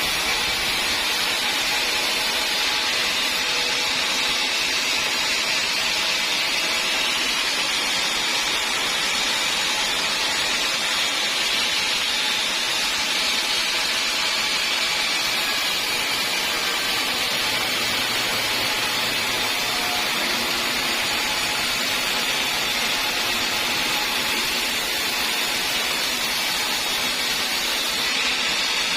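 Sawmill saw running steadily, a continuous high hiss with no pauses.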